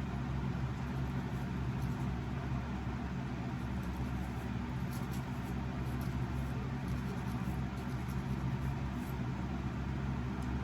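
Hair dryer blowing steadily, a motor hum with rushing air, drying the glue layers for a lace wig.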